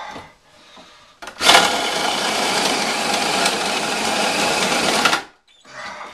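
A handheld power tool runs in one steady burst of about four seconds, starting and stopping abruptly, with light handling sounds before it.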